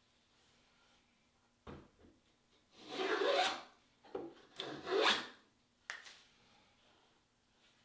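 Hand plane shaving the edge of a walnut strip to cut a bevel: a light knock, then two longer strokes about three and five seconds in, with a short one between them. A click follows.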